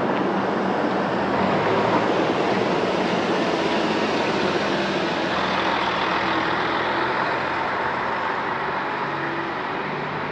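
A road vehicle's engine and tyres running close by with a low, steady hum. It is loudest about two seconds in and slowly fades as the vehicle moves off.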